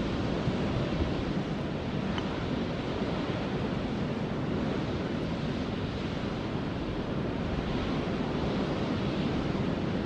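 Steady rushing of wind over an open highland, with some low rumble of wind on the microphone, mixed with the distant steady rush of the Haifoss waterfall.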